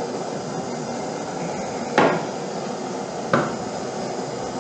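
Two sharp knocks about a second and a half apart, the first the louder, each with a short ring, over a steady rushing noise.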